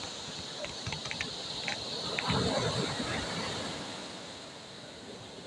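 Sea waves washing on the shore, with a wave breaking about two seconds in, swelling louder and then fading as it runs back. A few light clicks come just before it.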